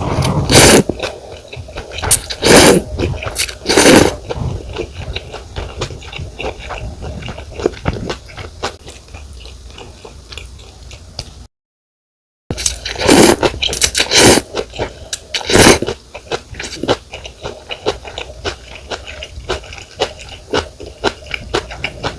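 Close-miked eating of pho: several loud, short slurps of rice noodles and broth, and steady wet chewing and mouth clicks between them. The sound drops out to dead silence for about a second near the middle.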